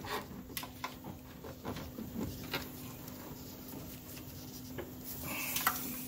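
Rustling and scattered light clicks of a car wiring harness being handled and fed through a firewall hole, with a brief burst of rustling about five seconds in. A steady low hum runs underneath.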